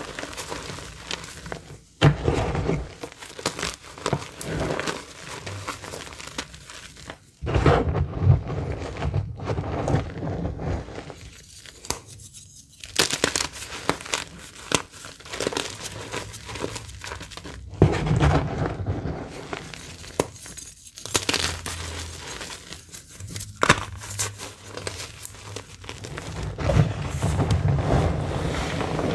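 Reformed purple gym chalk bars crushed and crumbled in gloved hands: irregular crunching and gritty crackling in bursts as the lumps break apart and the chalk powder shifts.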